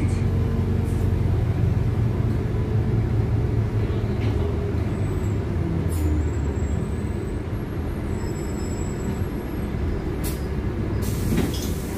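Cabin noise inside a LiAZ 5292.71 city bus on the move: a steady low rumble of the running gear and tyres, with a brief hiss near the end.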